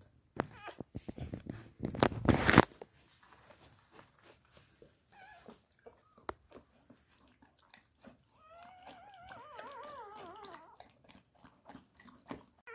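Labrador bitch licking and chewing wet and noisily at a newborn puppy and its birth sac, with a loud rustling scuffle about two seconds in. From about two-thirds of the way through, a newborn puppy cries in high wavering squeals for a couple of seconds.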